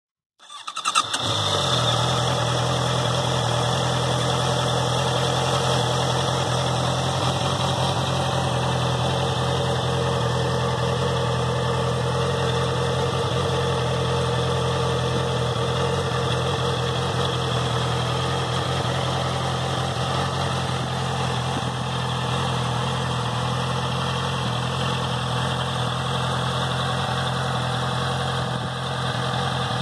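Honda CBR650F's inline-four engine idling steadily through its stock exhaust.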